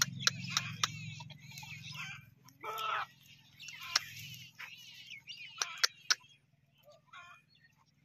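Outdoor farm ambience: small birds chirping, with scattered sharp clicks and a short, lower call about three seconds in. A faint low hum fades out about halfway through.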